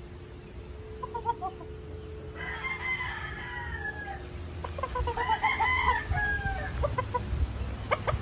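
Gamefowl roosters crowing: two long crows a few seconds apart, with a few short clucks about a second in.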